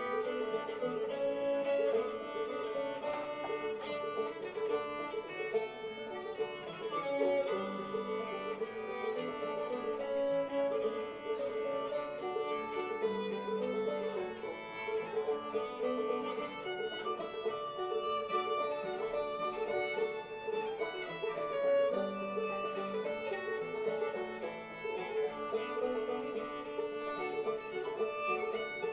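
Old-time string band playing a tune live, a fiddle leading over a banjo.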